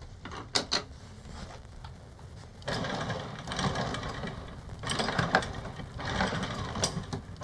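Electric anchor windlass paying out chain, the links rattling over the gypsy, starting about three seconds in after a few short clicks. The extra chain is let out so the anchor bridle takes the load.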